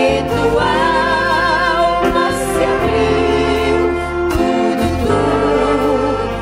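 Women's vocal group singing a gospel hymn together, the voices with a wide vibrato over an instrumental accompaniment of sustained low notes.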